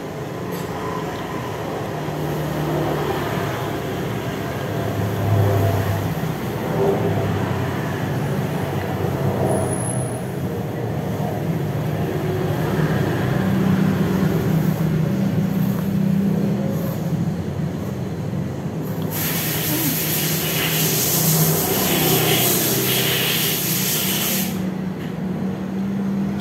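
A steady low engine rumble runs throughout. About nineteen seconds in, a loud hiss starts suddenly and cuts off about five seconds later.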